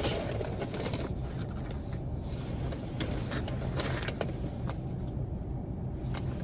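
Car engine idling steadily, heard from inside the cabin, with a few faint light clicks.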